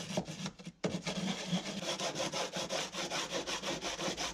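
Sandpaper rubbed quickly back and forth by hand over a car-body repair patch, about five or six strokes a second, scuffing deep scratches into it to prepare the surface. The strokes stop briefly a little under a second in, then carry on evenly.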